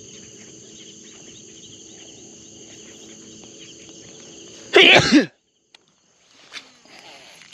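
Steady shrill chorus of crickets or other insects over a low hum, broken a little past the middle by one loud, short cough. After it the sound drops out for a moment, then a few faint knocks.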